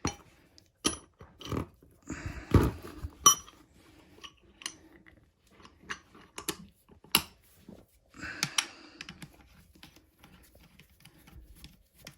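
Metal hand tools clicking and clinking against engine parts: a series of sharp, irregular clicks and knocks, with two brief rattling scrapes, one about two seconds in and one about eight seconds in.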